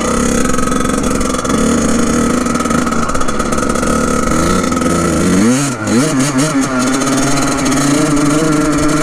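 Kawasaki KX100's two-stroke single-cylinder engine running under way on the dirt bike at steady revs. About five and a half seconds in, the revs drop briefly and climb again, then hold at a higher steady pitch.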